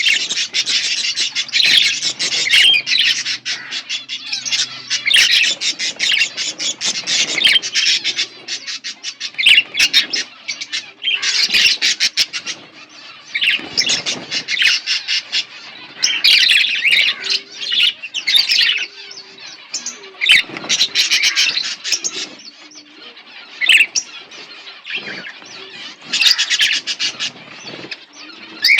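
Budgerigars chirping and chattering: dense, rapid warbling and squawks in spells of a few seconds with short pauses between them.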